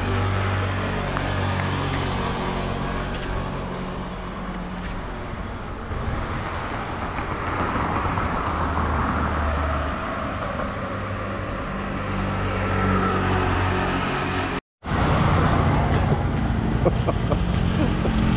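Road traffic: motor vehicle engines running and passing, with a low engine hum that shifts in pitch. The sound drops out for a moment about fifteen seconds in.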